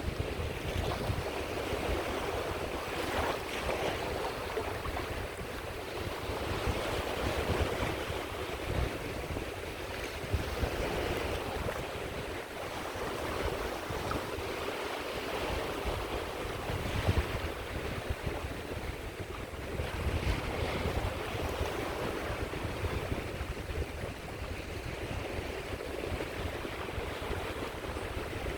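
Sea waves washing onto the shore, a continuous surf that swells and eases every few seconds, with a low wind rumble on the microphone.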